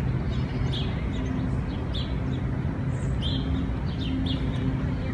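Small birds chirping, many short high chirps a few times a second, over a steady low hum and rumble.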